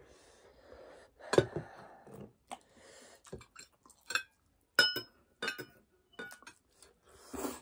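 Metal fork and spoon clinking and scraping against ceramic plates: a string of separate sharp clicks, several of them ringing briefly.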